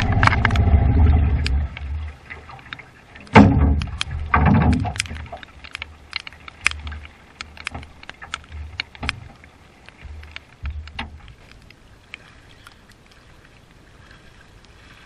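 Outboard motor on a small aluminum boat running with a steady low hum, then dropping away about a second and a half in. Two loud knocks on the aluminum hull follow, then scattered light ticks.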